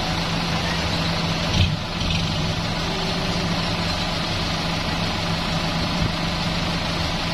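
Dump truck's diesel engine idling steadily, with a single short knock about one and a half seconds in.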